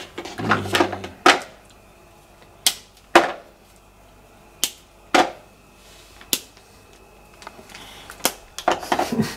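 A hard block of cooking chocolate being snapped into pieces by hand: about seven sharp cracks, spread irregularly over several seconds, the chocolate hard to break.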